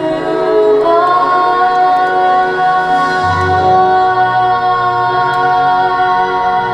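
Singing voices holding one long note over an accompaniment whose bass notes change partway through.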